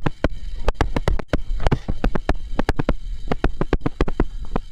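Stylus tapping and knocking on a tablet screen during handwriting: a rapid, irregular run of sharp clicks, several a second.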